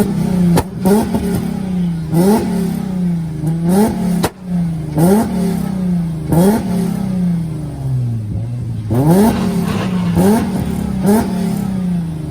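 Car engine revved hard over and over, about nine times, each rev climbing sharply and dropping back slowly, with sharp cracks from the exhaust between revs.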